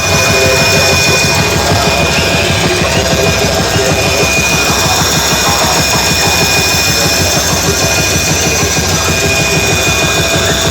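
Loud music played through large DJ sound-system speakers, with heavy bass.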